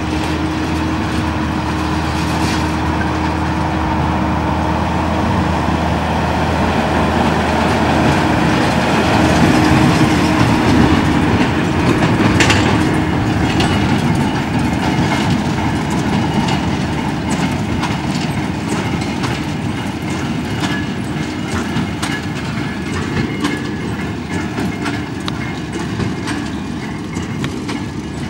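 Fendt 818 tractor running under load while pulling a Claas Quadrant 2200 large square baler that is pressing hay, with the baler's mechanism clattering in a rapid rhythm. It grows louder as the rig passes close, about ten seconds in, with a sharp knock just after, then fades as it moves away.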